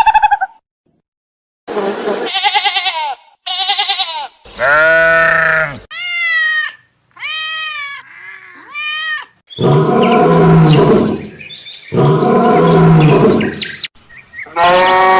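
A series of bleating animal calls, about eight in all: a few short calls with a quavering pitch, higher arching calls in the middle, and two longer, louder calls near the end.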